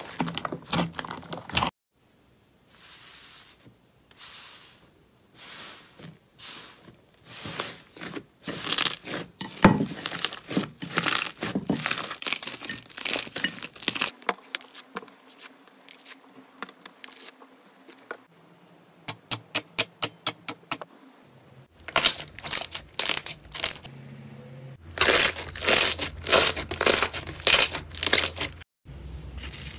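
Hands squeezing, stretching and tearing slime: sticky crackles and pops in dense runs with short pauses, the character changing abruptly several times.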